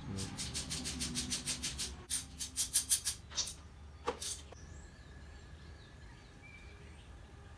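Ratchet wrench clicking in quick runs of about seven clicks a second as the differential cover bolts are backed off, followed by a couple of sharper metal knocks about four seconds in. Faint birdsong afterwards.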